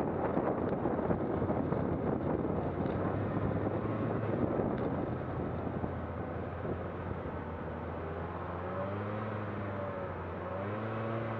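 An engine runs under a loud rushing noise. About eight seconds in, the rush eases and the engine's hum comes through more clearly, its pitch wavering up and down.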